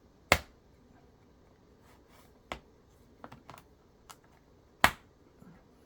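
Plastic clips of a laptop's bottom cover snapping loose as the cover is pried and pulled off: two sharp clicks, one just after the start and one near the end, with a few fainter clicks between.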